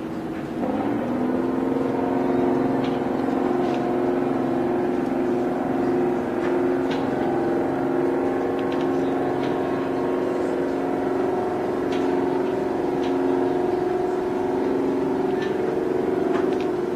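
Ship's horn sounding one long, steady two-note blast that starts about a second in and cuts off near the end.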